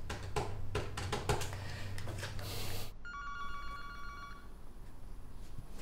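A run of clicks and light knocks, then about three seconds in a telephone's electronic ringer trills for about a second and a half: a ring of the phone being called.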